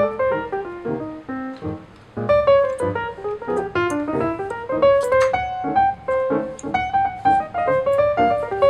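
Background instrumental music: a quick run of short notes that drops away briefly about two seconds in.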